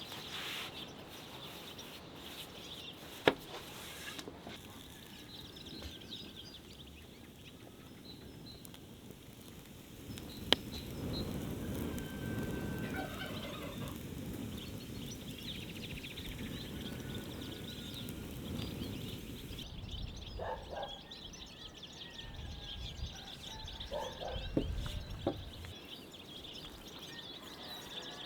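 Domestic fowl calling, with small birds chirping in the background and two sharp knocks, about three seconds in and about ten seconds in.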